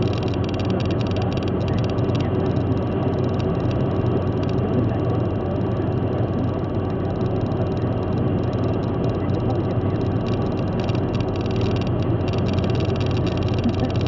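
Steady road and engine noise inside a car cruising at motorway speed: an even low drone of tyres and engine.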